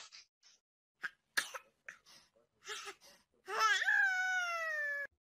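A domestic cat giving one long, drawn-out meow that slides down in pitch, about three and a half seconds in, after a few short, sharp sounds.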